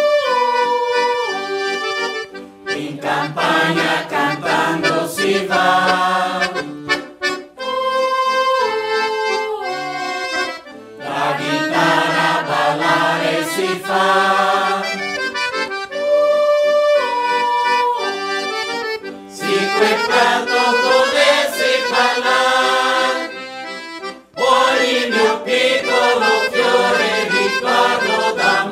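Mixed choir of men and women singing a traditional Italian folk song to accordion accompaniment, with brief pauses between phrases.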